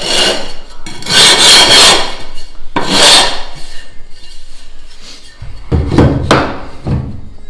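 Gypsum decorative-stone tile being scraped along its edge in about four scraping strokes, the longest about a second in, trimming the edge to fit.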